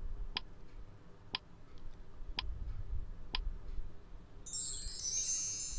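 Countdown timer sound effect: four clock ticks about a second apart, then a bright, high, shimmering chime about four and a half seconds in as the countdown reaches zero and time runs out.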